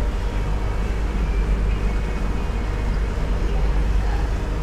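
Boat engine running steadily on the water, a constant low drone.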